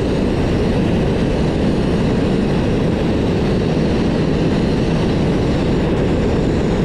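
Sandblasting rig's compressed-air supply running with a steady low rushing noise, air blowing out past the worn seal at the blast hose's nozzle coupling.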